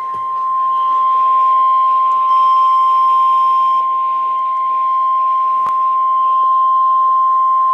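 NOAA Weather Radio 1050 Hz warning alarm tone: one loud, steady, unbroken beep held at a single pitch. It is the alert that a warning message follows, here a severe thunderstorm warning.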